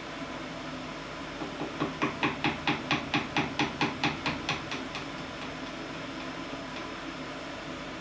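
Small ball-peen hammer tapping rapidly on metal, about four to five light blows a second for a few seconds, growing stronger and then fading out. The hammer is working a snapped drill bit out of a hole in an aluminium fixture plate.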